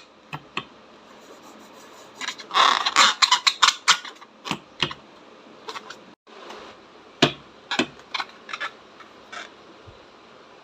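Slime being squeezed and mixed by hand, giving irregular sticky clicks and crackles, bunched into a quick run about two to four seconds in.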